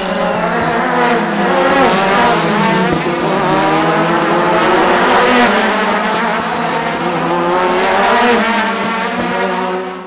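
Several IndyCar race cars with 2.2-litre twin-turbo V6 engines passing at speed one after another. Their engine notes overlap and rise and fall through the gear changes.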